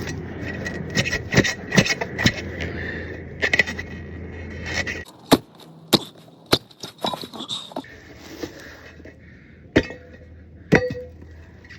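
Metal hardware clinking and clicking sharply and irregularly, dense at first and sparser later, as screws and washers are handled at a golf cart wheel. A steady rushing noise underlies the first half and cuts off suddenly about five seconds in.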